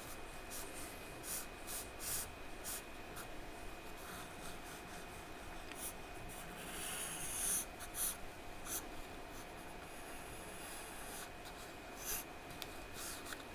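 Charcoal scratching on drawing paper in short strokes about once a second, with a longer rubbing hiss a little past halfway as the hand smudges the charcoal across the paper.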